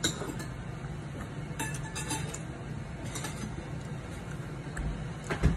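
Light clinks of dishes and tableware at a dinner table, scattered short clicks over a low steady hum, with a heavier thump near the end.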